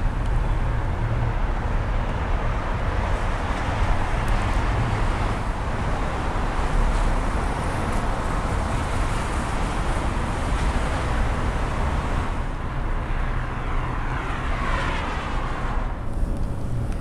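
Steady outdoor street noise of passing traffic, a continuous low rumble. One louder vehicle passes by late on, its sound sweeping in pitch as it goes.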